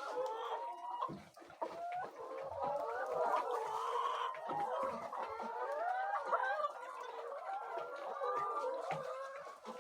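A flock of laying hens clucking and calling, many birds' voices overlapping continuously.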